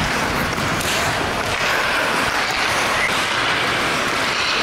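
Steady scraping rush of hockey skate blades pushing hard and cutting into the ice, with a low rumble underneath.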